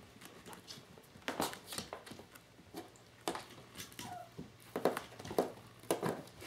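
Irregular scratching and scuffling as a kitten wrestles with a cardboard scratcher box, its claws raking the scratcher and its body shifting on the wooden floor.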